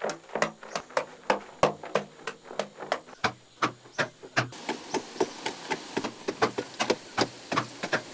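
Pickaxe blows chopping into a packed clay-earth wall, about three strikes a second, each a short thud with crumbling soil. A faint steady hiss runs under the strikes from about halfway.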